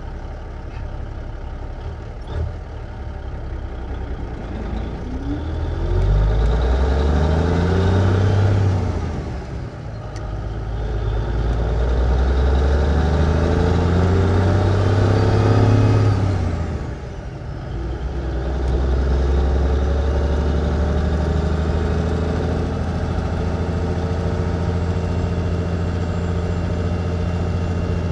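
A 1954 big rig truck's engine, heard from inside the cab. It idles, then pulls away: the revs climb and fall back twice as it shifts up through the gears, then it holds a steady pull. A short click comes a couple of seconds in.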